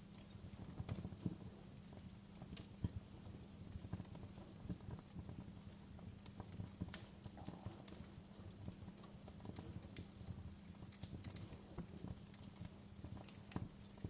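Wood fire crackling in a fireplace: irregular sharp snaps and pops over a low, steady rumble of burning.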